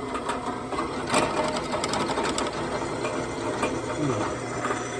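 Drill press running with its bit cutting into the metal carburetor adapter housing of a blower, a steady motor hum with irregular scraping clicks from the cut.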